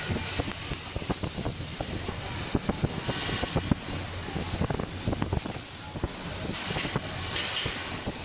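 Robotic cold metal transfer (CMT) welding arc running, a dense, irregular crackle of short snaps, with brief hissing about three seconds in and again near the end.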